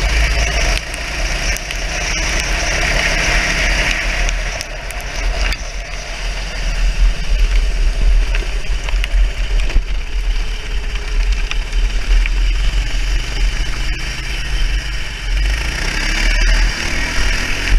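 Race kart engine running under the seat, heard from onboard over heavy wind rumble on the microphone, while the kart runs off the wet track across the grass. Near the end the engine's pitch rises as it picks up revs.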